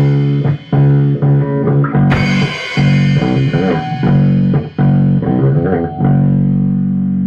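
Rock band of electric guitar, bass guitar and drums playing live: choppy, stop-start chords, a cymbal crash about two seconds in, then one last chord held and left ringing from about six seconds in as the song ends.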